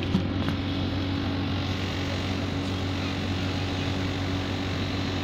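Steady engine drone heard from inside an airport apron shuttle bus, with a couple of light knocks about half a second in.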